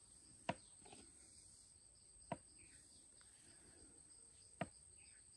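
Faint, steady insect chirring, with three short sharp clicks about two seconds apart.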